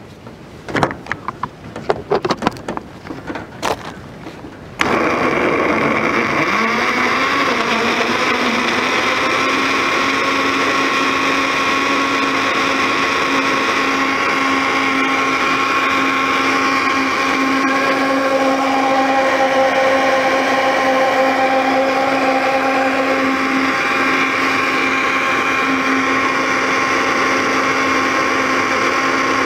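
A few plastic knocks and clicks as the blender jar and lid are set on. About five seconds in, the electric blender's motor starts, climbs briefly in pitch and then runs steadily, blending milk, ice cream and chocolate into a thick shake.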